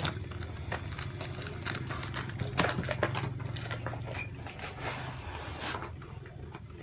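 Scattered light clicks and knocks of cardboard and plastic packaging being handled and opened, over a low hum that fades out about five seconds in.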